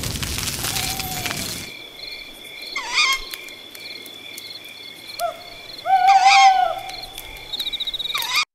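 Campfire crackling for the first couple of seconds, then night-time woodland sounds: insects trilling steadily and an owl calling twice, about three and six seconds in. The sound cuts off suddenly just before the end.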